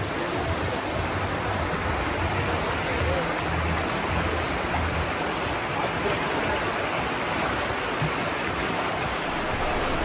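Steady rush of river water over rapids, a constant noisy wash. A faint bass beat of background music pulses under it in the first half and fades out.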